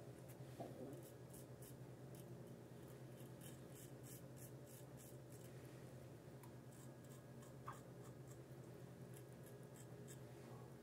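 Faint, crisp scraping of a Rockwell R1 double-edge safety razor cutting through lathered stubble, in a run of short, quick strokes.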